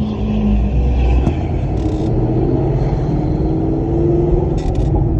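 Ford Mustang S550's engine running under way, heard from inside the cabin with a steady low rumble; its note rises in pitch about three seconds in as the car accelerates.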